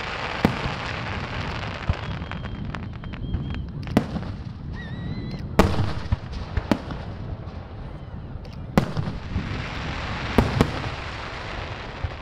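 Aerial fireworks display: shells bursting in about seven sharp bangs at irregular intervals over a continuous crackling hiss.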